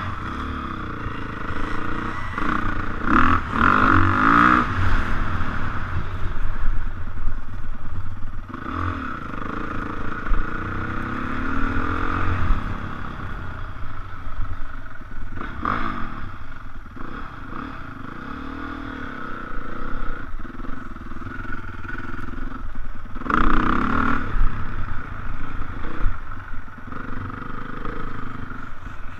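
Dirt bike engine revving up and down as it is ridden over bumpy grass, heard from a helmet-mounted camera, with a few knocks and rattles from the bike. It is loudest about three seconds in and again near the end.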